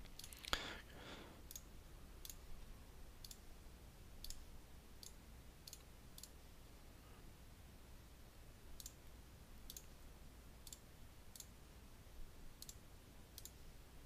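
Faint computer mouse clicks, a dozen or so at roughly one a second with a pause of about two seconds midway, as keys on an on-screen number keypad are clicked one at a time.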